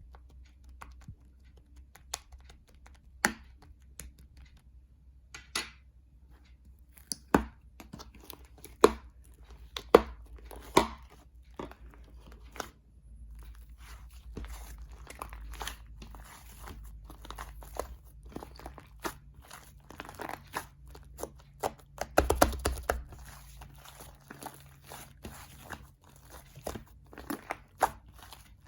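Shaving-foam slime being pressed and squished by hand, giving scattered sharp pops and crackles. The crackling grows denser in the second half, loudest about two-thirds of the way through.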